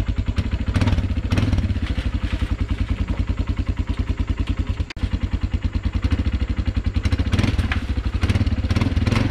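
Kawasaki Brute Force 300 ATV's single-cylinder four-stroke engine idling with an even, rapid pulse, picking up briefly about a second in and again near the end.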